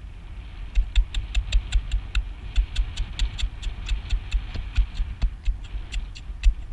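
A rapid, uneven series of knocks, each with a low thump and a sharp click, about four to five a second, starting under a second in.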